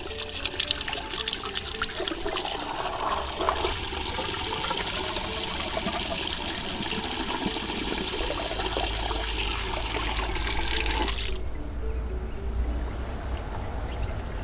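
Running water splashing into a basin as berries are rinsed in a colander; the flow cuts off abruptly about eleven seconds in.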